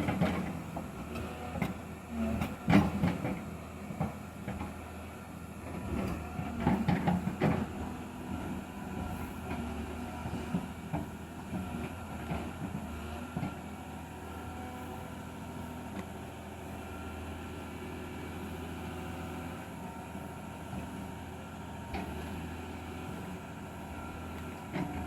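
Excavator's diesel engine running steadily under load, with heavy knocks and rattling clanks during the first eight seconds or so as it works, then settling to an even engine hum.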